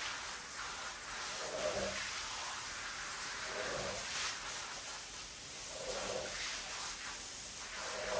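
Rubber squeegee being pushed over a soaked rug, swishing water off it in repeated strokes, one about every two seconds, over a steady wet hiss: water being squeezed out of the pile after washing.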